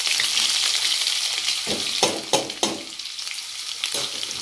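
Sliced onions sizzling as they fry in hot oil with cumin seeds in a kadhai, just tipped into the oil, the sizzle easing a little as it goes on. A few quick knocks, most likely a utensil against the pan, come about two seconds in and once more near the end.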